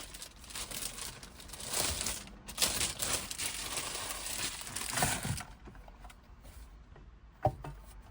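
Packaging being handled and pulled off a new car stereo head unit: continuous crinkling for about five seconds, then it stops, followed by a single sharp knock near the end.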